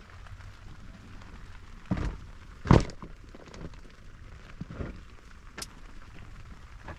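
Steady rain falling, with two loud knocks about two and three seconds in and a couple of lighter knocks later.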